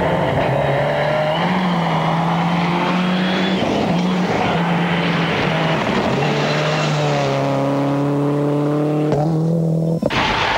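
Subaru Impreza rally car engine running hard, its pitch dropping and climbing again several times with quick gear changes. The sound changes abruptly near the end.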